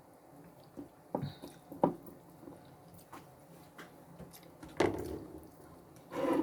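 Soft, wet squishing of mozzarella pieces being placed and pressed onto food in a baking pan, with a few light taps, the sharpest about two seconds in, and a brief rustle near the end.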